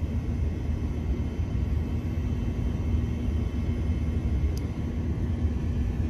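Daikin RMXS48LVJU inverter heat pump outdoor unit running, its compressor and fan giving a steady low hum with a faint steady tone. The unit is low on R410A refrigerant: its compressor is drawing only about half its rated current.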